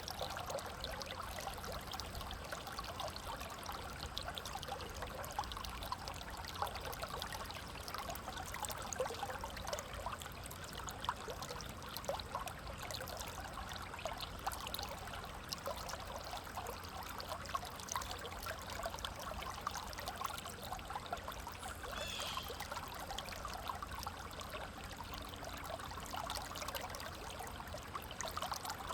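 River water flowing steadily, with a dense babble of small splashes and trickles.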